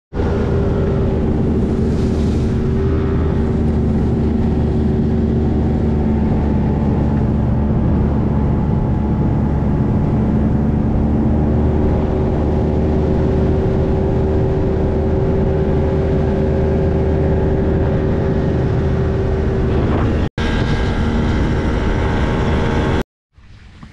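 Outboard motor running at a steady cruising speed as the jon boat travels, with wind buffeting the microphone. The sound breaks off briefly about twenty seconds in and again just before the end.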